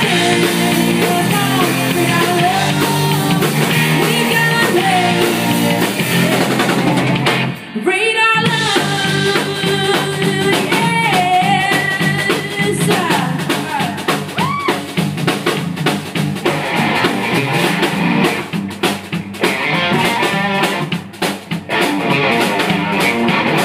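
Live rock band playing: a woman singing lead over electric guitars, bass guitar and a drum kit, with a brief break in the music about eight seconds in.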